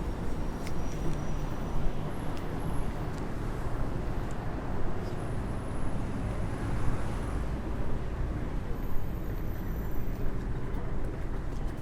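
Heavy city street traffic: a steady rumble of engines and tyres.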